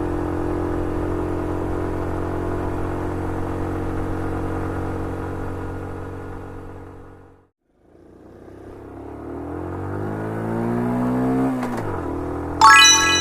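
Car engine sound running steadily, fading out to silence about halfway through, then fading back in and revving up with rising pitch before dropping off. A brief high-pitched squeal comes near the end.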